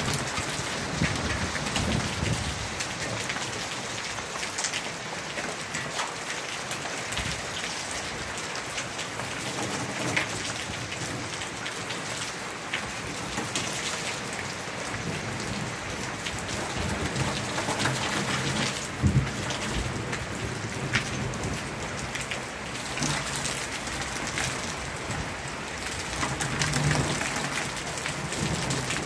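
Heavy rain pouring down, pattering on a wooden deck and splashing into open water-filled plastic barrels, with many sharp individual drop impacts over a steady hiss.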